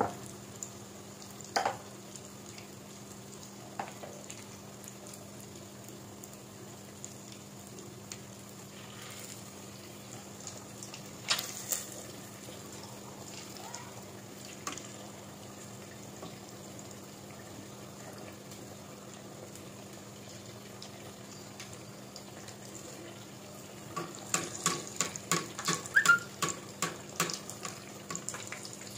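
Batter-coated eggs deep-frying in hot oil, a steady sizzle, with scattered sharp clicks and a quick run of clicks a few seconds before the end.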